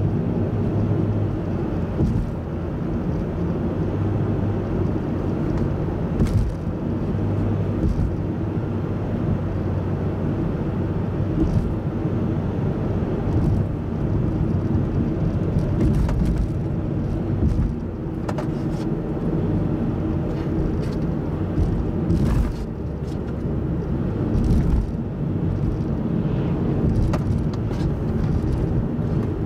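Car driving at road speed, heard from inside the cabin: a steady low drone of engine and tyre noise, with a few short clicks now and then.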